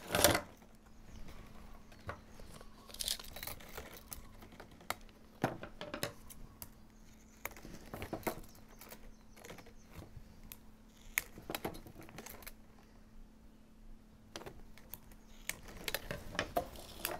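Plastic baling straps being handled and bent over on a woven basket: scattered sharp clicks, taps and crinkles, with a louder click at the very start.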